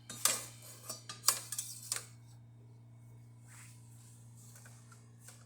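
Dishware clattering: a cup or jug being handled and set in place, with several clinks and knocks in the first two seconds, the loudest about a quarter second and a second and a quarter in. A faint steady hum lies underneath.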